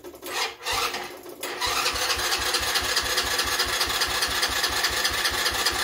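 Electric starter cranking the 2007 Redcat's 90cc air-cooled ATV engine. After two short tries it cranks steadily from about a second and a half in, with an even chugging of about six strokes a second, and the engine does not catch.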